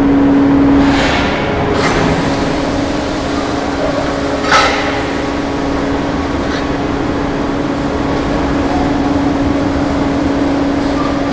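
3000-ton hot forming press running with a steady hum and a constant low tone as its ram lifts a hot-formed dish head. There is brief hissing about a second in and again just before two seconds, and a single sharp metallic clank about four and a half seconds in.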